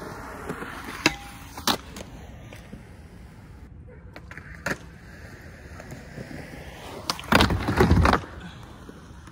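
Skateboard grinding along the steel edge of a skatepark box: a loud scrape lasting about a second, near the end. Earlier come three sharp clacks, two close together about a second in and one near the middle.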